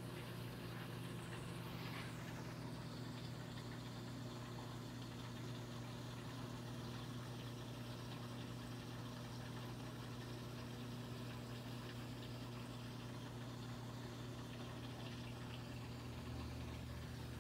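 Steady low hum of reef aquarium pumps, with a faint wash of circulating water.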